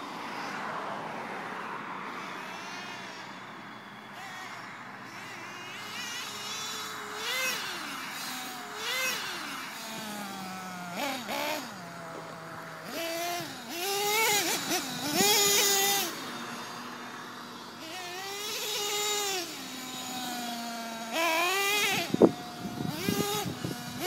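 Small two-stroke engine of a fuel-powered RC car being driven hard, revving up and down again and again, with short stretches of steady idle between the bursts. Near the end there is a sharp knock.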